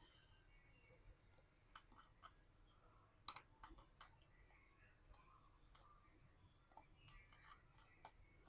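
Near silence with faint, scattered clicks of small repair tools and screws on an iPhone's internal parts, the sharpest about two and three seconds in.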